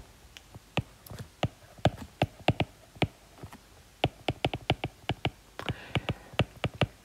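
Stylus tapping and clicking on a tablet's glass screen during handwriting: a string of short, irregular taps that come fastest a little past the middle.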